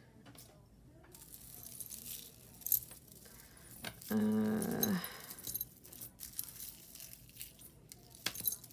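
Metal jewelry chains and pieces clinking lightly as they are handled, in scattered small jingles. About four seconds in comes a short, low, hum-like vocal sound that drops in pitch as it ends, the loudest thing heard.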